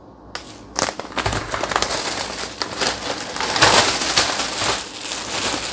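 Thin plastic carrier bag rustling and crinkling as a hand rummages inside it, loudest about four seconds in.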